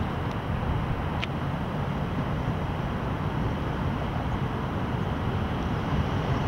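Steady low rumble of a distant jet airliner's engines in flight.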